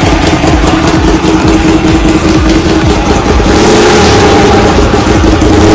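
Hyosung Comet GT V-twin motorcycle engine running through a modified exhaust that leaks at several joints, giving a really nasty exhaust note. The revs rise a little about three and a half seconds in.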